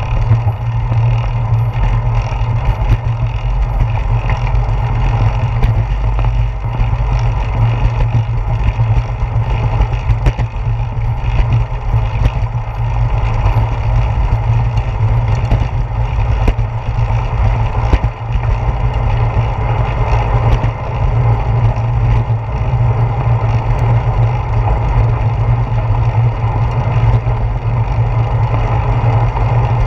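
Loud, steady wind and road rumble on a handlebar-mounted GoPro's microphone as a bicycle rolls along at speed, with frequent small knocks from bumps in the pavement.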